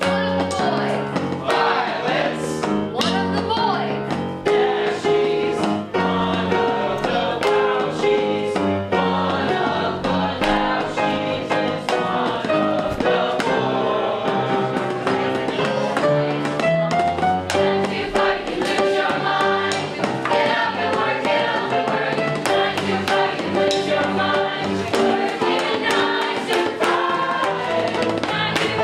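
A group of voices singing a musical-theatre number together, with instrumental accompaniment.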